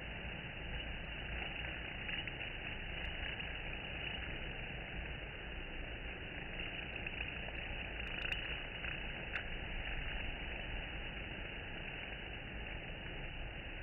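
Honeybees buzzing at a hive entrance: a steady, dense hum of many bees.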